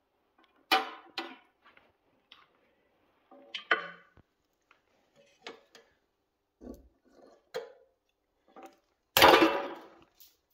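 Pliers and metal parts clicking and clinking against a carburetor and its brass fuel pipe as the carburetor is worked on by hand. Scattered single clicks, with a louder metallic clatter that rings briefly about nine seconds in.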